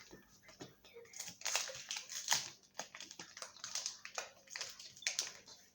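Foil Pokémon card booster pack wrapper crinkling and crackling in the hands, an irregular run of short crackles.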